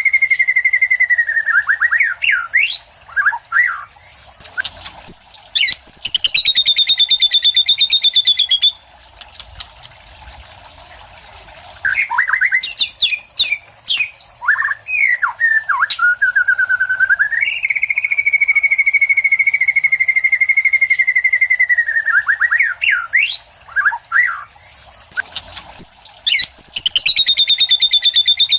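White-rumped shama (murai batu) singing loudly, with long rapid rattling trills held at a steady pitch alternating with bursts of quick sweeping whistled notes and short pauses. Its song carries mimicked material such as lovebird, cililin and sparrow calls and the 'kapas tembak' rattle.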